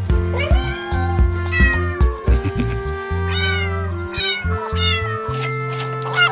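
A string of cat meows, one every second or so, over background music with held notes and a pulsing bass.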